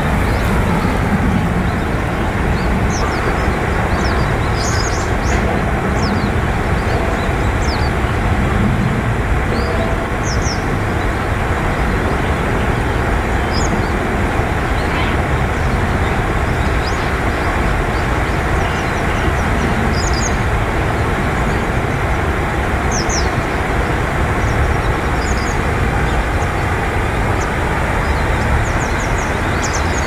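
Steady rushing of river water, with short, high chirps of small birds scattered over it.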